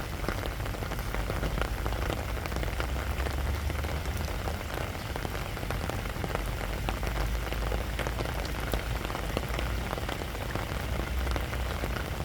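Steady gentle rain falling on sandy ground: an even hiss dotted with countless small drop ticks, over a constant low rumble.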